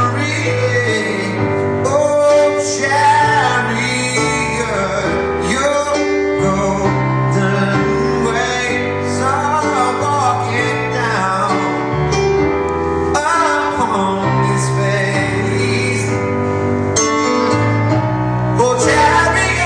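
Male singer performing a pop-rock song live, with instrumental backing.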